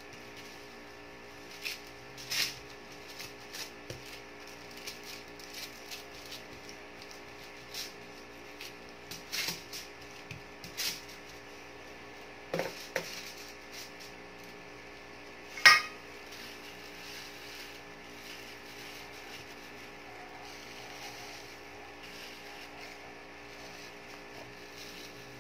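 A spoon knocking and scraping against a stainless steel mixing bowl as meat mixture is scooped out onto foil: scattered clinks and taps, the loudest about sixteen seconds in. A low steady hum runs underneath, with little else in the last third.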